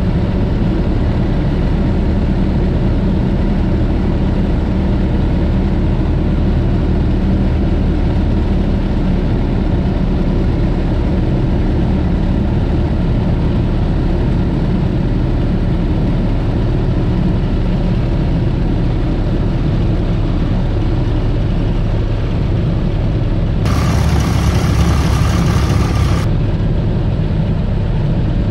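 Engine and propeller of a 1941 Piper J-3 Cub, heard from inside the cabin, running steadily with wind rush, throttled back for a power-off 180 approach. Near the end a louder hiss with a thin steady whistle comes in for about two seconds.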